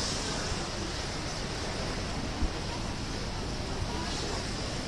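Steady outdoor noise of wind and waves, with wind rumbling on the microphone. A single short thump comes about halfway through.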